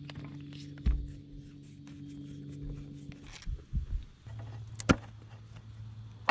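Scattered clicks and knocks of hand tools working on an outboard motor's fuel pump, the sharpest click about five seconds in. A steady low hum runs underneath and drops in pitch after about four seconds.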